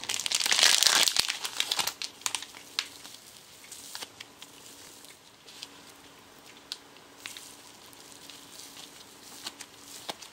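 Hands working soft, lightweight air-dry craft clay: a burst of crinkling over the first two seconds, then scattered soft crackles and ticks as the clay is pulled apart and kneaded.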